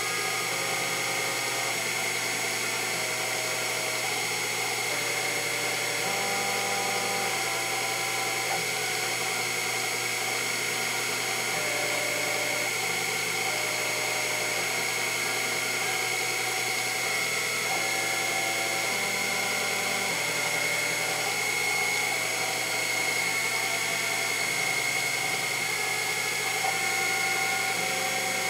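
Sherline CNC mill running an end mill through a 1-inch Delrin rod on its rotary fourth axis: a steady high whine from the spindle and cut, with tones that jump to a new pitch every second or so as the stepper-driven axes change speed together.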